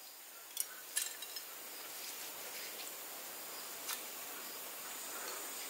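Chopped pickled chillies being dropped by hand onto porcelain plates: a few faint light clicks and taps, several in the first second and a half and one more near four seconds, over a faint steady hiss.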